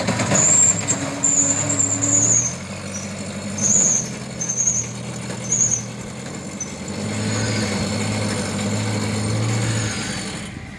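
Off-road 4x4 buggy's engine revving in repeated surges as it climbs through mud, with a high-pitched squeal sounding over several of the revs in the first half, then a longer steady pull near the end.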